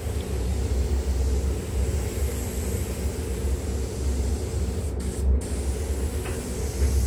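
Compressed-air spray gun hissing as it sprays quartz glass coating onto a car's paintwork, with a brief break in the hiss about five seconds in, over a steady low rumble.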